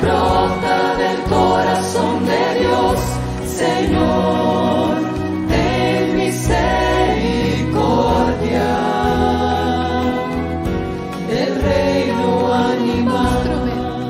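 A mixed choir of men's and women's voices singing a Spanish devotional hymn, a sung rosary prayer, in phrases of a few seconds each. The choir is accompanied by acoustic guitar, bass guitar and violin, with steady low bass notes under the voices.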